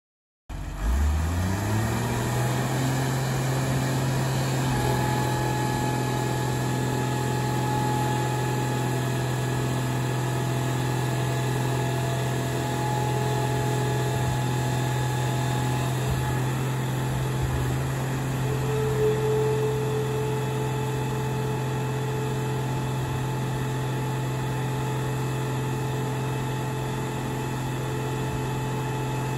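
The engine-driven hydraulic power unit of a 1995 Mac car crusher comes in, climbs in pitch over about a second, then runs steadily with a thin whine over the engine hum as the crushing lid is worked with no load.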